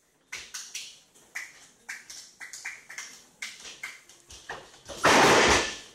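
A quick run of sharp cracks, about three or four a second, then near the end a loud rush of noise lasting almost a second.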